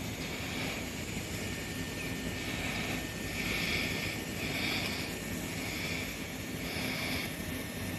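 Steady low hum of a Tobu 350 series train, with a high, hissy pulsing sound over it that repeats roughly once a second.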